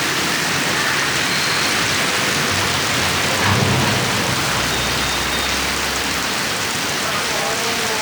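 Heavy rain pouring down in a steady, dense hiss. A brief low rumble rises through it about three and a half seconds in.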